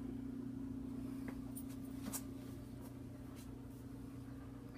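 A steady low hum, with a few faint clicks about one and two seconds in.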